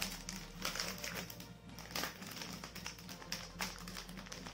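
Clear plastic sleeve of a pack of black drawing paper crinkling in irregular crackles as it is handled, over background music.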